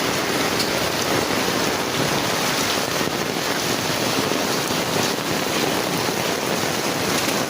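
Heavy rain pouring down in a steady, dense hiss of a downpour.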